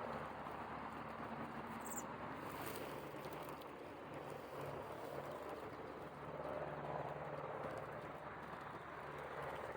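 Soft rustling and light pattering of blueberries being picked by hand from the bush, over a steady low hum. A single short high chirp sounds about two seconds in.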